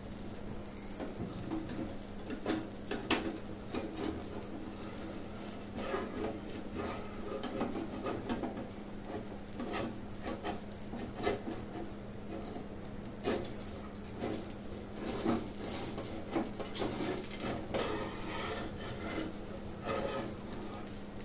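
Steel spatula scraping and scratching against a hot griddle (tawa) as it is worked under a crisp dosa to loosen it, in many short, irregular strokes with small clicks. A steady low hum runs underneath.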